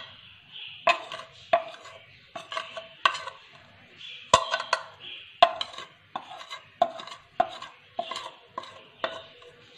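Metal spoon tapping and scraping against a ceramic plate to knock spices off it: repeated sharp clinks at uneven intervals, each with a short ring.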